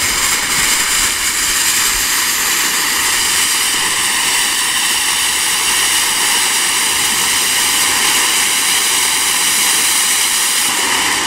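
Ground fountain firework spraying sparks with a loud, steady hiss that holds evenly throughout.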